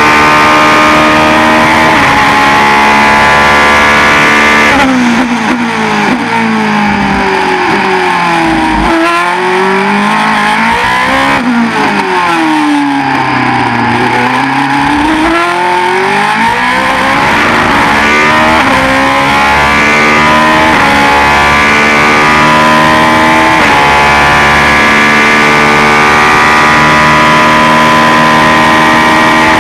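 A GP2 car's Mecachrome V8 engine, heard from onboard. It holds high revs, then about five seconds in drops sharply as the driver brakes and downshifts through the gears. It picks up and falls again through a slow corner, then climbs back up through several upshifts, each a brief dip in pitch, and holds high revs near the end.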